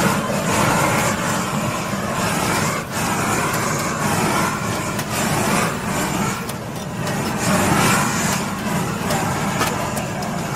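Steady roaring hiss of a handheld gas blowtorch searing cubes of meat on a wire grill, with a few light clicks of metal tongs against the grill bars.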